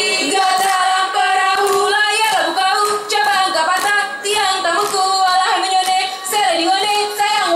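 Young female voices chanting a song in unison, with sharp percussive hits, hand claps and drum strikes, landing about twice a second.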